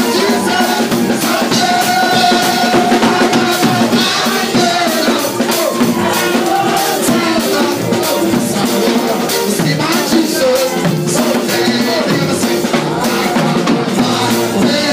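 Live music with a drum kit playing a steady beat and voices singing through microphones.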